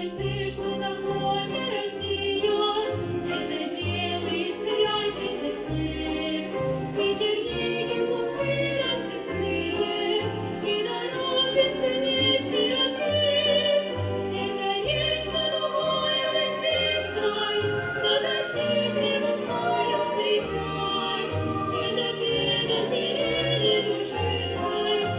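A Russian folk-instrument orchestra playing a song with a steady bass line, accompanying vocal soloists singing.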